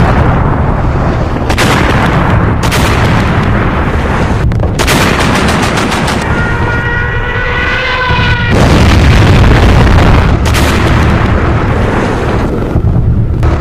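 Battle noise of dense gunfire mixed with heavy gun and artillery blasts, cut together in short sections that start and stop abruptly. Around the middle a wavering whistling tone sounds for about two seconds over the din.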